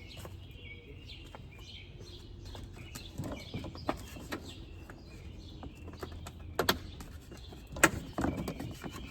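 A few sharp clicks and knocks from plastic bumper clips and trim being handled and pushed back into place on a car's front bumper, the loudest about eight seconds in, with birds chirping in the background.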